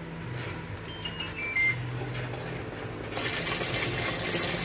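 Top-loading washing machine's control panel giving a short falling series of beeps about a second in. About three seconds in, water starts rushing steadily into the drum through the newly replaced water inlet valve, a sign the valve now lets water in.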